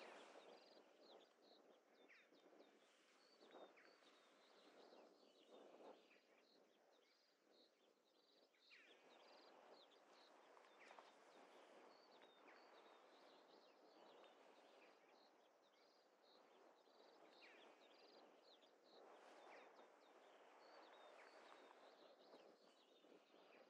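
Near silence: faint open-air ambience with soft swells of noise and faint, short high chirps repeating throughout, like a small bird calling.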